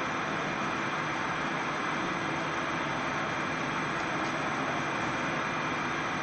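RYQ 3 turbocharger balancing machine running, the turbo core spinning at a steady speed during an unbalance measurement: an even, steady rushing noise.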